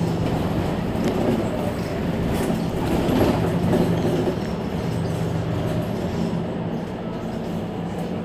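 Mercedes-Benz Citaro C2 Hybrid city bus idling at a stop, its diesel engine running with a steady low hum.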